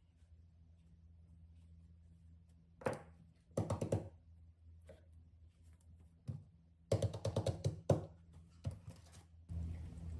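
Fingers pressing and handling fidget toys: a few single taps and two short runs of quick clicks, about a second long each, over a low steady hum.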